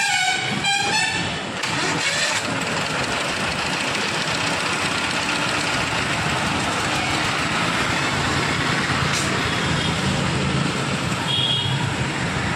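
Gas welding torch burning with a steady, even rushing noise.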